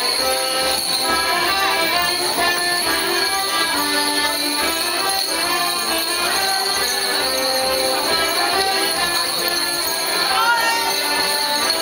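Morris dancers' leg bells jingling in time with their stepping, over a folk dance tune of held melody notes.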